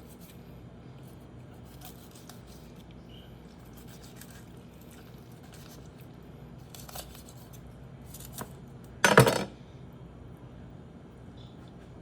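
Kitchen knife-and-board work on a raw chicken: a few faint clicks and taps, then one loud hard clatter lasting under half a second about nine seconds in.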